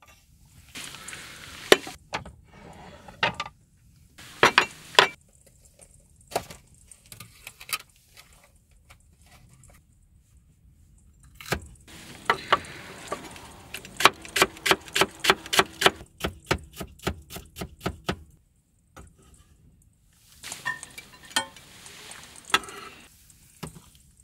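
Knocks and clicks of kitchen gear being handled, with a run of about a dozen quick, even strikes, about three a second, in the middle.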